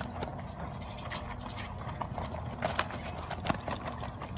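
Trampoline springs and frame rattling and clicking irregularly as a Labrador runs and bounces across the mat.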